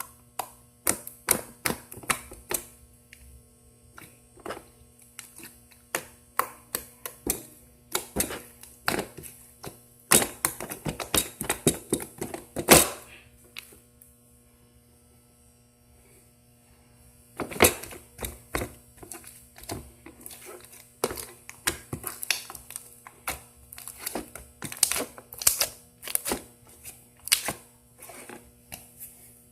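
Slime being squeezed and stretched by hand, giving irregular sharp clicks and pops, with a pause of a few seconds about halfway through. A faint steady hum runs underneath.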